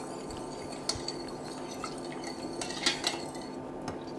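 Metal spoon scraping and clinking against a ceramic bowl and a stainless steel pot while a thick flour mixture is spooned in and stirred, with a few sharp clinks, the loudest a little under three seconds in. A steady low hum runs underneath.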